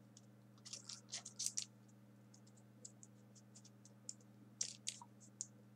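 Small folded printer-paper pieces being pushed into the rows of a 3D origami model by hand: faint, quick paper clicks and scratches, bunched about a second in and again near the end, over a low steady hum.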